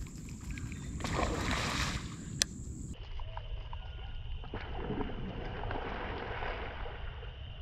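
Light splashing on calm water as a topwater lure is worked across the surface, then a fish strikes it with a splash, over a steady outdoor hiss. One sharp click comes about two and a half seconds in.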